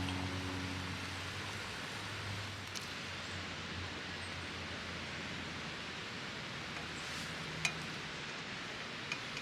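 Steady outdoor hiss of forest ambience, with a few light clicks, the sharpest about three-quarters of the way through. Background music fades out in the first second or two.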